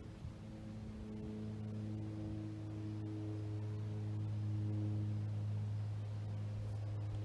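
Background music: a sustained ambient drone of steady, slowly shifting tones that cuts off abruptly near the end.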